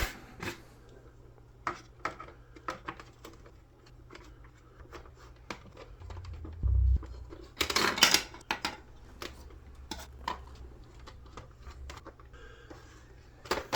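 Plastic clicks and knocks from handling and taking apart a Nerf Rival Hypnos blaster, scattered irregularly, with a longer, louder rattle about eight seconds in.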